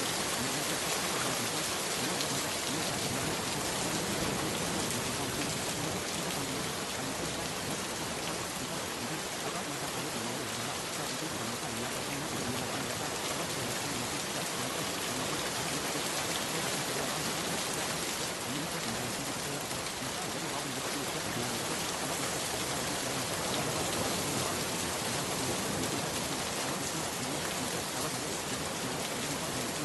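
Steady rain, an even patter of raindrops falling without let-up.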